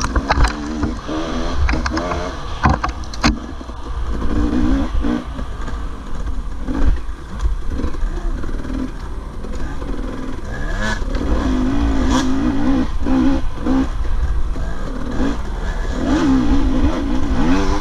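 Honda dirt bike's engine revving up and down over and over as it is ridden along a rough trail, with sharp knocks and clatter from the bike over the ground.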